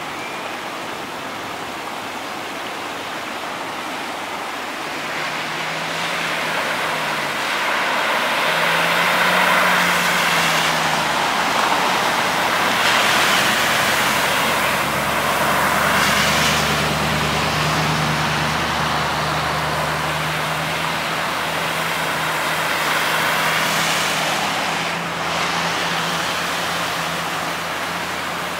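Cars and a pickup truck driving through floodwater standing on a street, their tyres throwing up spray with a rushing splash, over the hum of their engines. Several passes swell and fade one after another, the loudest near the middle.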